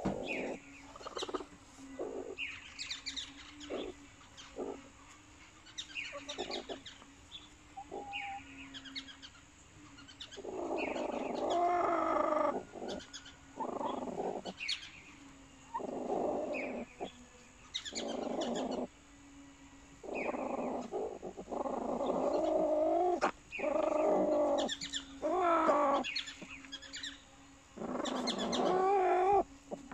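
Hens calling in their nest boxes: scattered short clucks and chirps at first, then from about ten seconds in a run of longer, drawn-out calls, each about a second long.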